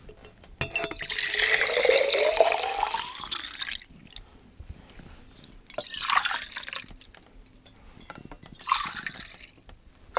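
Water poured from a plastic pitcher into hammered copper mugs: one long pour whose pitch rises as the vessel fills, then two short pours about six and nine seconds in.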